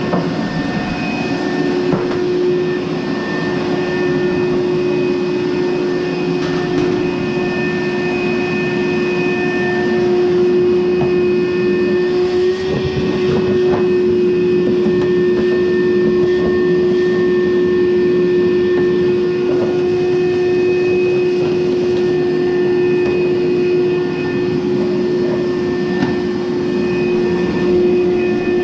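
Frigidaire electric clothes dryer running, its motor and drum turning with a steady hum and a constant tone.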